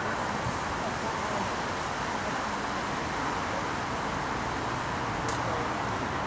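Steady outdoor background noise, an even hiss over a low rumble, with one short click about five seconds in.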